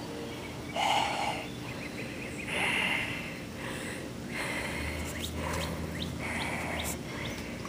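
A string of loud, heavy breaths, one every second or so, made by a person for an unseen lurking creature. Faint bird chirps sound behind them.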